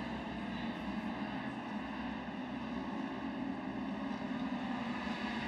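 Engines of several Pro Stock side-by-side UTVs racing on a dirt track, heard as a steady engine drone.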